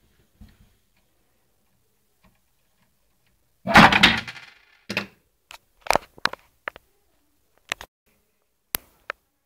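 Plastic clicks and clatter from a Lego-built toy sniper rifle being handled. There is one louder rattling clatter about four seconds in, followed by a string of separate sharp clicks.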